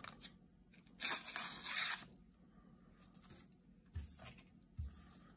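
Thin paper being sliced by a razor-sharp S30V steel knife blade, a dry rasp lasting about a second, as a sharpness test. Two light thumps follow near the end.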